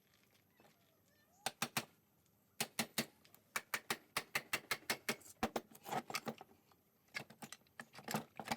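Two-stroke engine crankcase being tapped to split its halves: a series of sharp, irregular knocks, about two or three a second, starting about a second and a half in.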